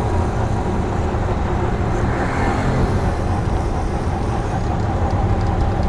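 Street traffic: vehicle engines running and passing close by in a steady rumble, with one vehicle swelling up about two seconds in.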